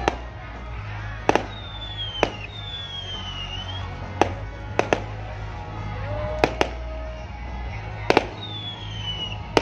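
Aerial fireworks shells bursting: about ten sharp bangs, some in quick pairs, with a few high whistles falling in pitch between them. Music with a steady low bass plays underneath.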